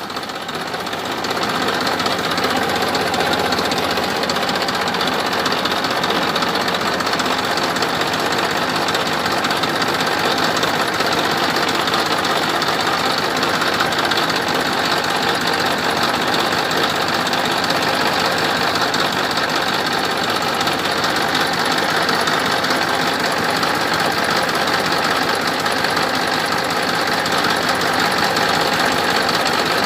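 An engine running steadily at a constant speed. It starts up just before and settles within the first second or so.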